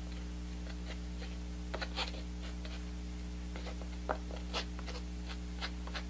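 Faint handling sounds of a plastic squeeze bottle of white acrylic paint, a few soft clicks and rustles as it is picked up and squeezed onto a canvas, over a steady low hum.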